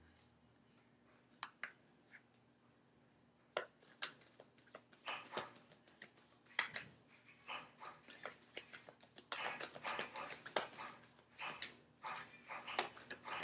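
Tarot cards being shuffled and handled: a run of quick clicks and rustles, a few at first, then growing busier from about three and a half seconds in.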